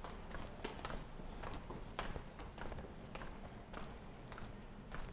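Footsteps going down stairs at a walking pace, a little under two steps a second, uneven, over faint steady background noise.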